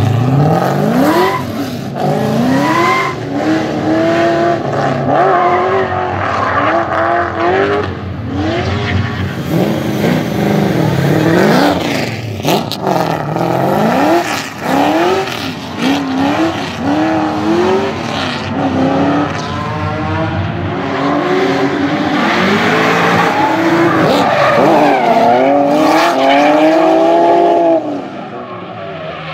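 LS3 V8 in a Nissan Silvia S14 revving hard while drifting, its pitch climbing and dropping back again and again as the throttle is worked, over the squeal of spinning tyres.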